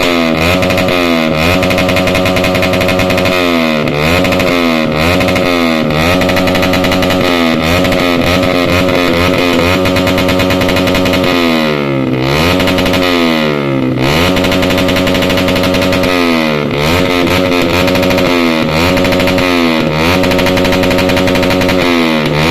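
Motorcycle exhaust through a Pro Liner muffler with no dB killer, revved over and over: the loud engine note drops and climbs back every second or two, with a longer, deeper dip about twelve seconds in.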